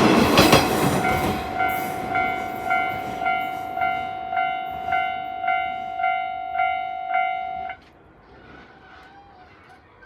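Japanese level-crossing alarm bell dinging about twice a second as a train passes through, the train loud in the first second or so. The bell cuts off suddenly near the end.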